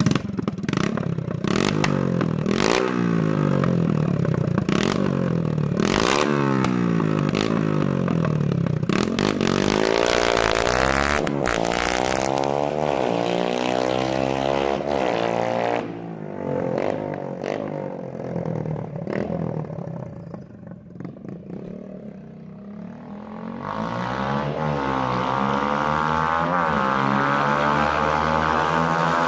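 Beta RR 125 4T's single-cylinder four-stroke engine running with its exhaust removed, revving up and down over and over. It drops quieter about two-thirds of the way through, then comes back loud.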